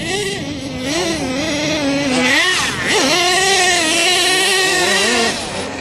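Small two-stroke engine of a radio-controlled monster truck running hard, its pitch rising and falling as it is throttled up and down, with a quick sharp rev about halfway through.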